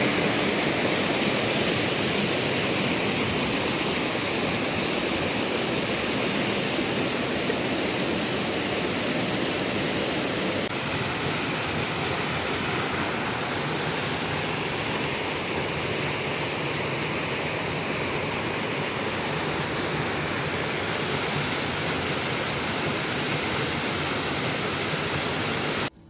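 Stream water cascading over and between boulders in a small waterfall: a steady rushing noise.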